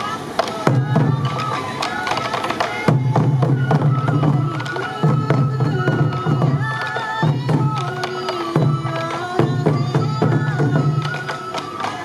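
Traditional Sansa odori dance music: a bamboo flute melody over repeated taiko drum strikes.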